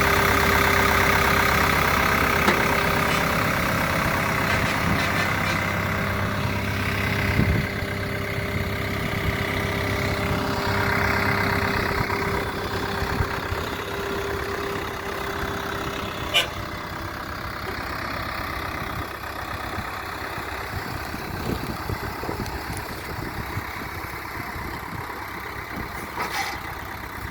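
JCB 3DX backhoe loader's diesel engine running steadily, loudest at first and slowly growing quieter, with a sharp knock about halfway through and a few more near the end.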